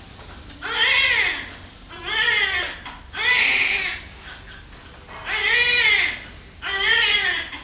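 Newborn baby crying: five cries of about a second each, each rising and then falling in pitch, with short breaths between.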